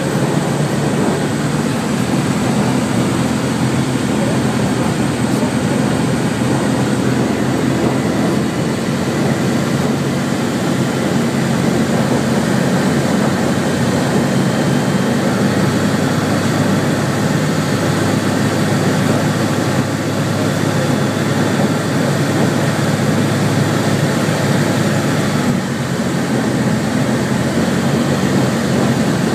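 Zenair 601 light aircraft heard from inside its cockpit in flight: the engine and propeller running steadily, with airflow noise, at an unchanging level.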